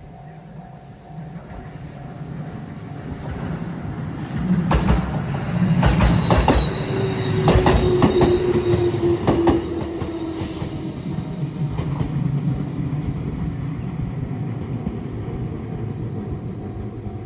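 JR Iida Line electric train passing over a level crossing: a rumble builds, its wheels click sharply over rail joints several times, and a tone falls slowly in pitch while it passes, then the rumble fades. A faint steady tone, the crossing's warning bell, sounds at the start and again near the end.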